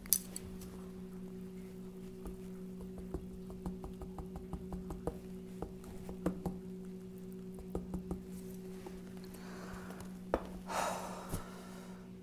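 Light, scattered clicks and taps of a utensil stirring seasoning into soup in a small cup, over a steady low hum. About eleven seconds in comes a short breathy sound.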